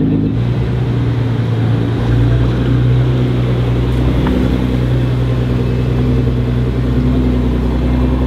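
Nissan GT-R R35's twin-turbo 3.8-litre V6 idling steadily, with a shift in tone about two seconds in.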